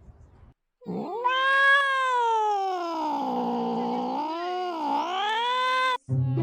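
A cat's long, drawn-out yowl of about five seconds, starting about a second in. It rises at first, then sags lower and wavers near the end before cutting off.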